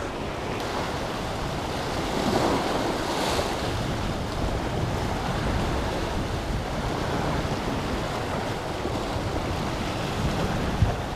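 Sea surf washing and breaking against the rocks, swelling a little a couple of seconds in, with wind buffeting the microphone.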